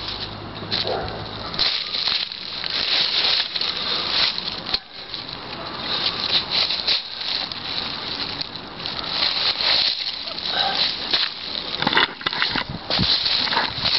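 Dry fallen leaves rustling and crunching underfoot as a person moves about and handles a cut log, in uneven crackles, with a sharp click near the end.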